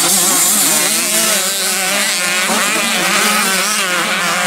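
Several mini motocross bike engines running at once, revving hard with their pitch rising and falling as the riders open and close the throttles.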